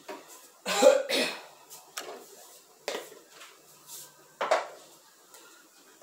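A person coughing, twice in quick succession about a second in, followed by two more short, sharp sounds a couple of seconds apart.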